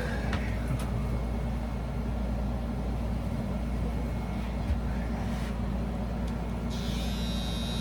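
A steady low hum, with a higher thin buzz coming in near the end.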